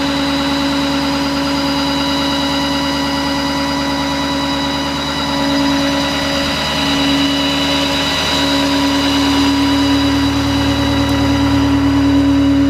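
Ford F-550 utility truck idling with its power take-off engaged: a steady droning tone over a low engine rumble, which grows a little louder in the second half.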